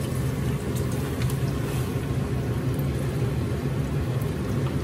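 Frozen shredded hash brown potatoes being poured from a bag into a pan of hot olive oil, with a steady low rumble and a noisy sizzle throughout.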